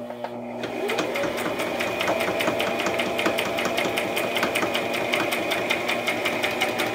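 Brother XM3700 electric sewing machine sewing a straight stitch through denim: the motor speeds up over the first second, then runs steadily with rapid, evenly spaced needle clicks.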